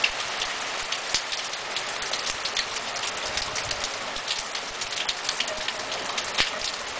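Heavy rain beating on a wet flagstone path, a steady hiss dotted with many sharp drop impacts.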